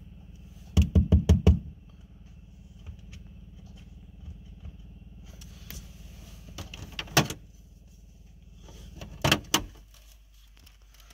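Low steady hum of the pickup truck running, heard from inside the cab. About a second in comes a quick run of five sharp clicks, with a few more clicks and knocks later as the mirror and its wiring are handled. The hum cuts out near the end.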